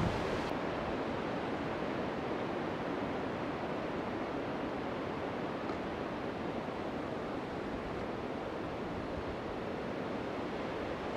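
Wind rushing steadily through tall gum trees, an even noise with no distinct events.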